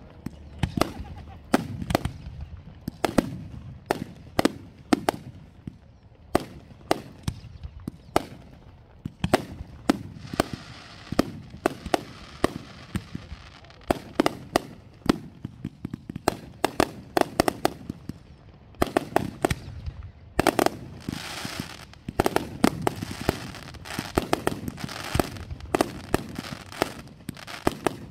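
Aerial fireworks firing and bursting in quick succession: a steady run of sharp bangs with crackle between them. The reports come thicker and closer together about two-thirds of the way through.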